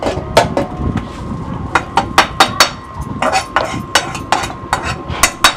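A metal spatula knocking and scraping against a pan in a rapid, irregular string of sharp clinks, as the roasted coconut is scraped out of the pan.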